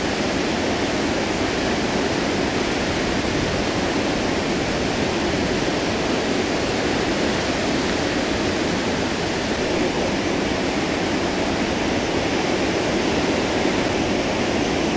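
Gullfoss waterfall on the Hvítá river: a loud, steady rush of heavy falling water, heard close to the falls.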